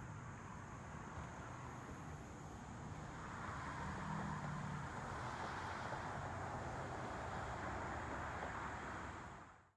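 Steady outdoor rushing noise over a low hum, growing louder about three and a half seconds in and fading out at the very end.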